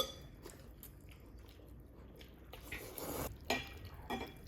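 A sharp utensil click, then soft wet sounds of sauce being spooned and mixed into a bowl of noodle soup, with a few small eating noises near the end.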